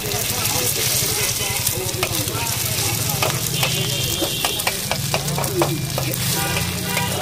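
Eggs sizzling in hot oil in a wok while a metal spatula chops and scrapes them against the pan, with many short scrapes and taps over the steady sizzle.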